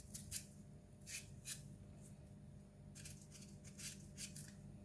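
Short scraping strokes of a blade paring the skin off an arrowhead (ngaku) corm, about ten soft strokes at an uneven pace.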